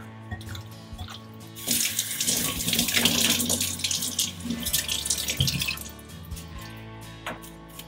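Kitchen tap water running into a stainless steel sink while a kohlrabi is rinsed under it, starting about two seconds in and stopping about six seconds in. Soft background music plays throughout.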